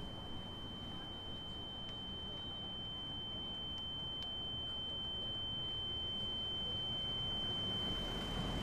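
A single steady high-pitched ringing tone, like a sine-wave ear-ringing effect, held unbroken and slowly growing louder over a low rumble. It is a film sound effect of ringing ears as the character turns unwell.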